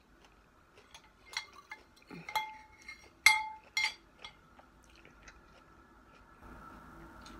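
A spoon clinking against a ceramic plate of rice, about five ringing clinks in the first four seconds, the loudest a little over three seconds in, then a few fainter taps.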